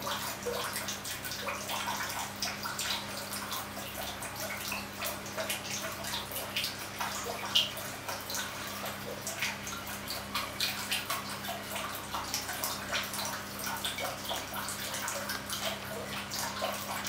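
Water running and splashing in an irregular patter, over a steady low hum.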